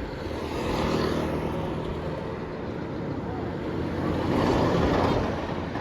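Roadside traffic: vehicles passing close by, their engine and tyre noise swelling about a second in and again, louder, around four to five seconds in, then fading.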